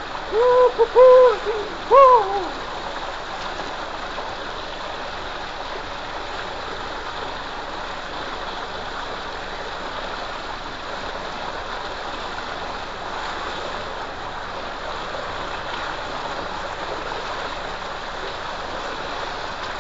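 Steady gushing and splashing of water pouring from a pipe outlet into a concrete tank full of water. A voice calls out twice in short pitched calls near the start.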